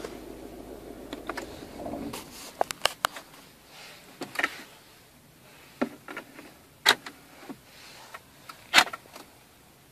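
A low steady hum that stops about two seconds in, followed by a string of sharp clicks and knocks from hands pressing buttons on a car's centre console and handling the recording phone inside the cabin.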